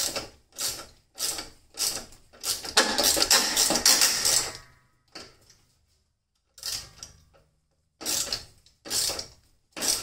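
Hand socket ratchet clicking in short back-and-forth strokes as it backs out tight screws, with a longer run of fast clicking about three seconds in and a brief pause around six seconds.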